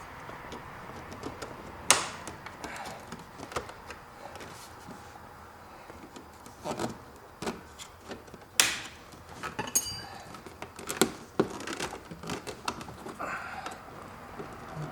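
Scattered sharp clicks and knocks of a plastic pry tool working against the car's plastic dash trim, the panel around the headlight switch being levered loose. The two loudest snaps come about two seconds in and past the middle, with a run of smaller clicks after.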